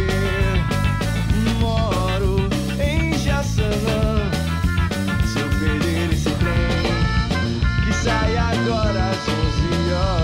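Ska music from a full band recording: a steady drum beat and bass under a melody of held notes, playing continuously.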